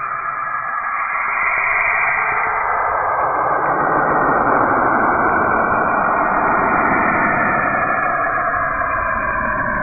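Space 'planet sound' recording made audible from spacecraft radio data: a continuous eerie hiss and rush with faint drifting tones, growing fuller about a second in.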